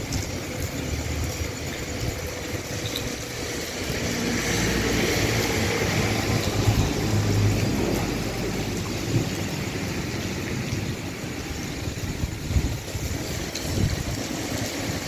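Heavy rain falling on a paved street and sidewalk: a steady rushing hiss that swells louder with a low rumble a few seconds in.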